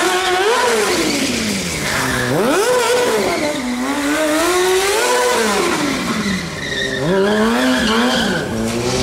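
Stunt motorcycle engine revving hard, its pitch rising and falling several times as the rider works the throttle, with tyre skid noise.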